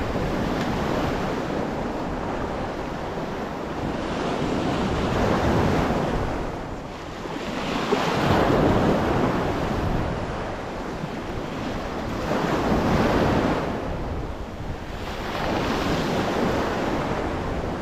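Sea waves washing and breaking around rocks at the shoreline, swelling and easing every three to four seconds, with wind buffeting the microphone.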